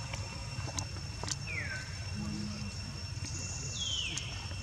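Two short, high chirping calls, each falling in pitch, over a steady insect drone and low rumble, with a few faint clicks.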